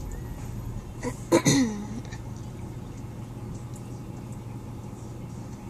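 Steady low drone of a 6.4-litre Power Stroke V8 diesel pickup engine heard from inside the cab. A short throat-clearing vocal sound comes about a second and a half in.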